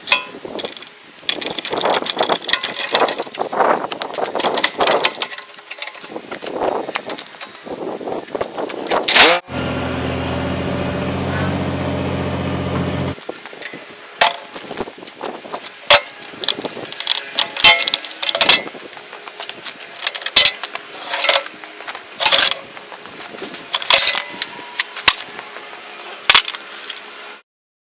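Ratchet straps being worked and cinched, with hooks and metal fittings clicking and clanking against the steel loader bucket and broom frame: a run of sharp clicks and knocks. About a third of the way in, a steady low hum holds for a few seconds and cuts off abruptly.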